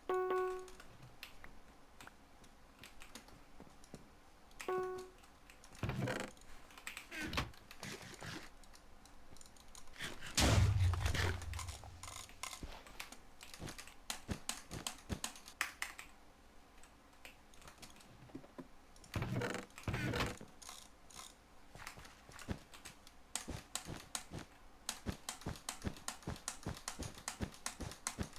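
Assorted small, sharp clicks and taps, irregular at first and then a quick run of ticks near the end, much like keys being pressed. A short pitched beep sounds right at the start and again a few seconds later, and a louder low thump comes a little past the middle.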